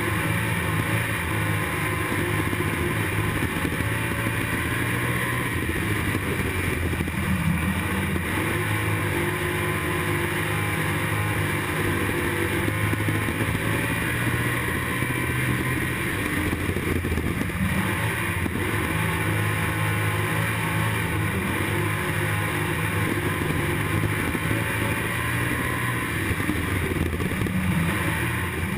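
IMCA Stock Car's V8 engine running hard at race speed, heard from inside the cockpit, with its note rising and falling a little as the throttle comes off and back on through the turns.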